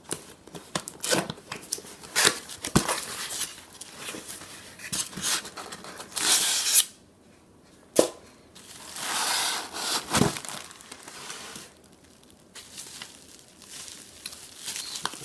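Cardboard and plastic packaging being torn open and handled while unboxing a French press: crinkling, tearing and scraping with scattered sharp clicks and knocks, and two longer tearing or rustling stretches about six and nine seconds in.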